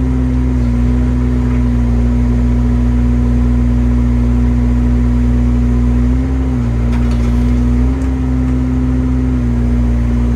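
Excavator's diesel engine running steadily under load with a steady hum from the hydraulics. Its pitch dips briefly twice, about six and eight seconds in, as the hydraulics take load while it digs a scoop of dirt.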